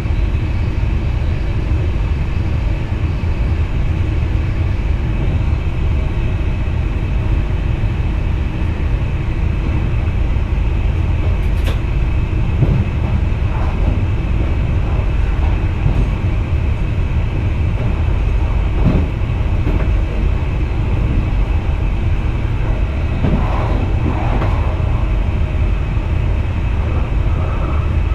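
Cab noise of an NS VIRM double-deck electric train running on the track: a steady low rumble with a faint steady whine above it, and a few short faint clicks and squeaks partway through and again near the end.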